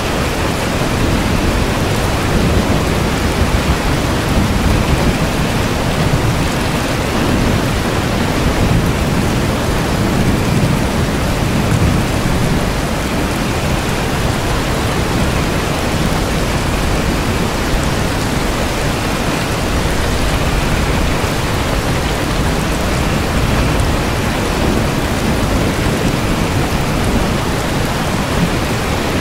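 Steady heavy rain, a dense even hiss with a low rumble underneath that swells a little about ten seconds in.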